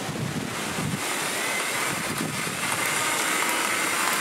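Small electric motor of a children's skipping-rope machine running, swinging a long arm and rope: a steady whir that grows about a second in, with a faint whine over it.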